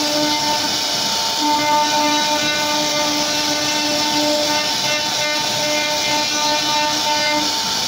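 1325 CNC router's spindle whining steadily as its bit cuts into a wooden board, over a constant hiss of cutting. The lowest tone drops out for about a second near the start, then returns.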